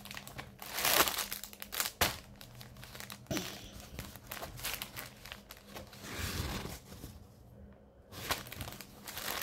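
Packaging crinkling and rustling as it is handled and opened, in irregular crackly bursts, loudest about one and two seconds in.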